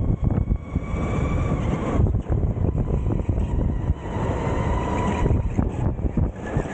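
Onboard sound of a Sodi electric go-kart driving hard, its motor whine rising and falling with speed over heavy wind buffeting on the microphone and chassis rumble.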